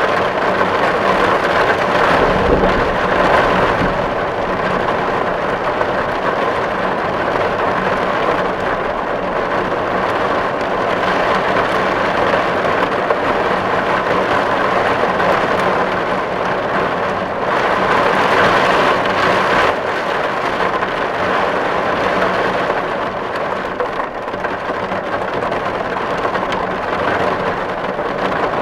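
Steady heavy rain falling on a tin roof: a dense, even patter of drops on metal that swells and eases a little.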